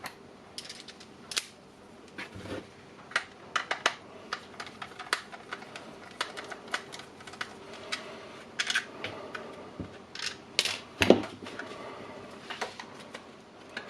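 Hands handling a Milwaukee M18 battery pack as it is taken apart: irregular sharp clicks and taps of its plastic case and parts, with a louder knock about eleven seconds in.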